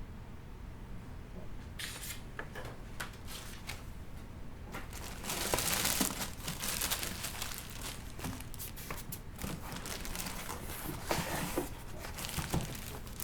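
Packaging being handled and pulled open: crinkling, rustling and tearing sounds with many short crackles, starting about two seconds in and loudest around the middle, over a faint steady low hum.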